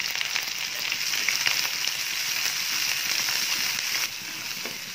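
Chopped onion and green chillies sizzling in hot oil in an aluminium kadai, a steady frying hiss with fine crackles that drops in loudness about four seconds in.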